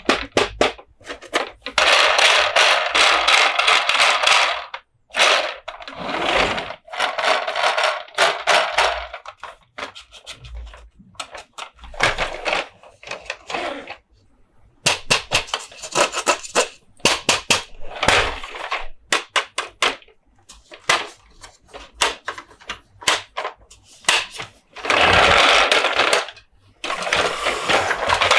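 Close-up handling of plastic Monster Jam toy trucks: rapid tapping and clicking on hard plastic, broken by stretches of a second or two of fast scratchy rattling, with short pauses between.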